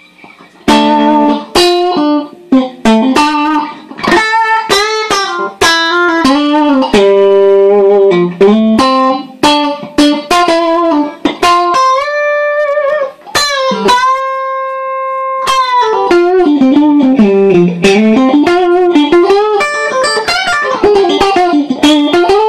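Electric guitar noodling through a Cali76 compressor pedal into an amp: single picked notes and short runs starting about a second in, one long sustained note about halfway through, then sliding, bending notes.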